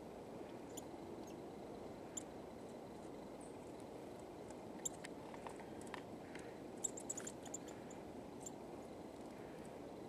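A bird picking at seed on a feeder tray: scattered short, sharp ticks, a cluster of them a little past the middle, over a steady low hiss.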